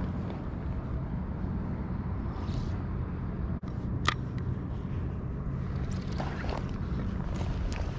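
Steady low rumble and hum from the riverside surroundings, with one sharp click about four seconds in as the spinning reel's bail is snapped shut after a cast.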